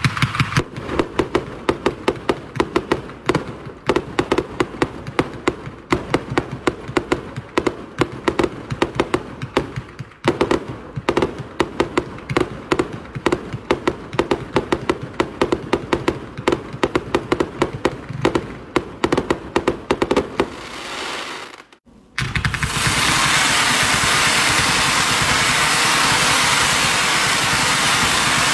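Firework cakes firing: a rapid string of sharp launch pops, several a second, for about twenty seconds with a short let-up near the middle. After a brief gap the sound turns into a steady loud hiss.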